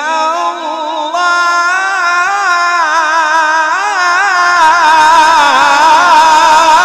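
A male qari reciting the Quran in a melodic tilawat style through a microphone: one voice holds a long, drawn-out vowel, its pitch wavering in quick ornamental turns.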